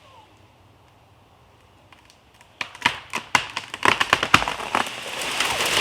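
A tree giving way and falling: a quick run of sharp cracks and snaps from the trunk starting a little over two seconds in, then the crown crashing down with a rush of breaking branches and leaves.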